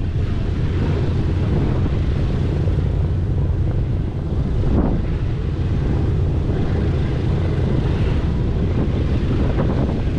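Steady drone of the B-17 Flying Fortress's four Wright R-1820 Cyclone radial engines and propellers running, with wind noise on the microphone.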